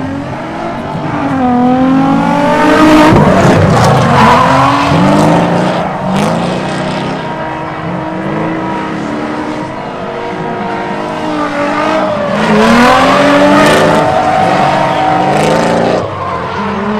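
Two drift cars in a tandem run, engines revving up and dropping back over and over as the drivers work the throttle, with tyres screeching. It is loudest about three seconds in and again about thirteen seconds in as the cars pass closest.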